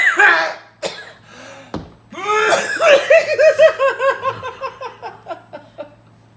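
A loud, forced sneeze right at the start, followed by a long run of laughter: quick rhythmic 'ha-ha-ha' bursts, about five a second, fading away.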